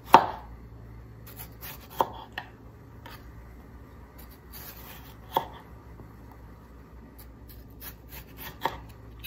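Chef's knife slicing a firm green tomato into rounds on a bamboo cutting board. Each cut ends in a sharp knock of the blade on the board, four of them a couple of seconds apart, the first the loudest.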